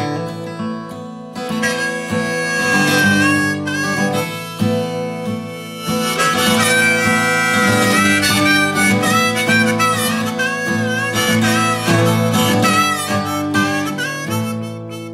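Background music: acoustic guitar chords with a harmonica playing a bending melody over them from about two seconds in.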